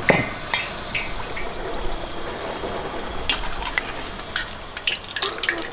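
Large pot of water at a rolling boil, bubbling steadily, with a splash as khinkali dumplings are dropped in at the start. From about four seconds in, short clicks as the dumplings are stirred in the pot. A faint steady high whine runs underneath.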